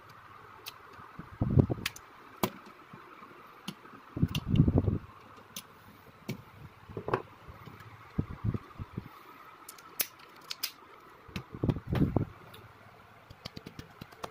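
Hands handling a toy scale-model car while it is being reassembled: scattered small clicks and taps from the parts, with a few dull thumps, the loudest about four to five seconds in.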